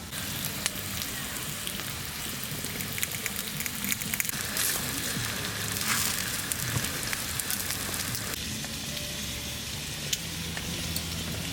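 Food sizzling and crackling in a hot non-stick pan, a steady fizzing hiss with many small pops throughout.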